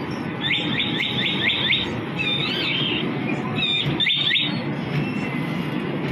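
Steady fairground din from a rotating children's ride, with a quick run of about six high bird-like chirps, then a warbling trill, then a few more chirps near the middle.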